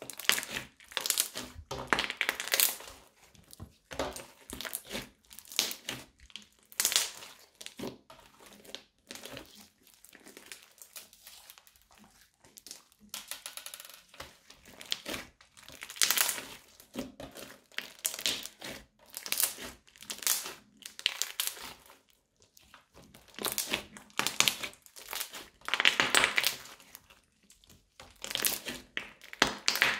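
Crunchy slime squeezed, kneaded and stretched by hand, crackling and popping in repeated bursts of dense crackles with short pauses between.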